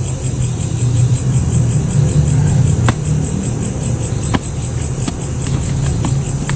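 A steady low rumble, with night insects trilling at a high pitch throughout and a few sharp clicks in the second half.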